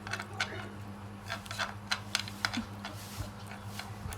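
A string of quick, irregular light clicks and taps over a steady low hum.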